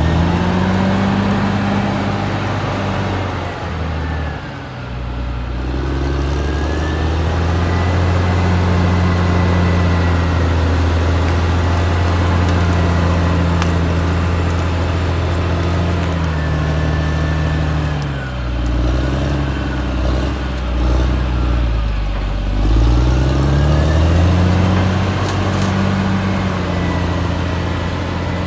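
Caterpillar D6R XL bulldozer's diesel engine running hard. Its engine speed sags and recovers twice, about four seconds in and again near the two-thirds mark, with a high whine that rises and falls along with it.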